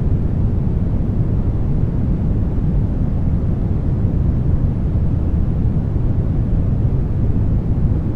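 Steady brown noise: an even, deep hiss weighted heavily to the low end, unchanging throughout.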